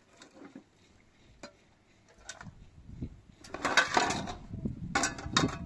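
Metal pans and plates clattering and scraping in a plastic basin of water as dishes are washed by hand. A few light clinks come first, then louder bursts of clatter about three and a half and five seconds in.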